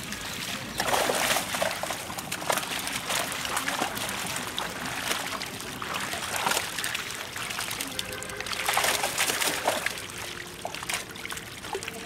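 Live fish thrashing and splashing in the shallow water of a drawn-in net as they are lifted out by hand, with water trickling and sloshing; several louder splashes come and go.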